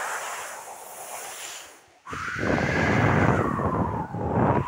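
A man imitating a storm wind with his voice. Breathy hissing gusts, a brief break about two seconds in, then a louder whistling tone that glides down and back up over a rushing breath.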